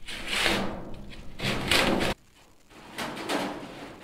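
Sheet-metal S-cleat sliding along the edge of a rectangular duct section: three scraping sweeps of metal on metal, the second cut off abruptly about two seconds in.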